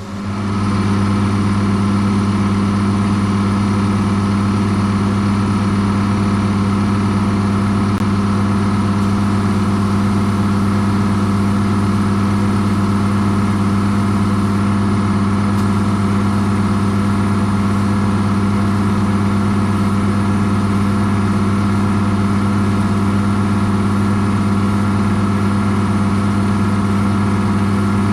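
A motor or engine running steadily at a constant pitch, a loud even hum that starts abruptly right at the start and holds unchanged.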